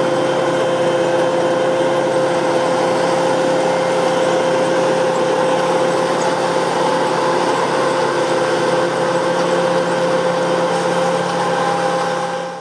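Massey Ferguson 7360 PL Beta combine harvester running steadily while harvesting, its engine and threshing machinery making a steady drone with a constant whine on top. It fades out at the very end.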